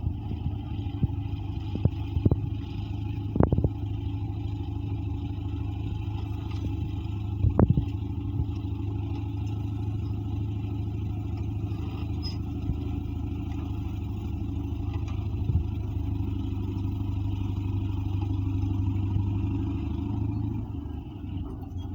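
Caterpillar D8 bulldozer's diesel engine running steadily under work, with a few sharp metallic clanks, the loudest about three and a half and seven and a half seconds in.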